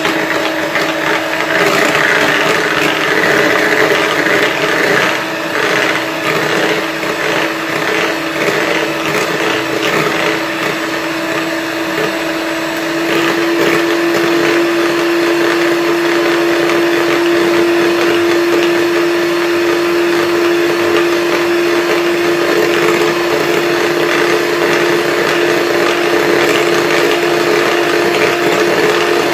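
Electric hand mixer running steadily with its beaters whipping cream in a bowl: a constant motor hum with a steady pitch over the whirring of the beaters. About halfway through, the hum becomes smoother and slightly louder.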